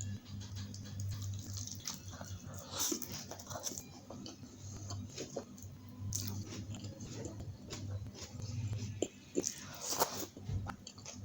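A person chewing and biting food, with irregular crunches and mouth clicks over a steady low hum.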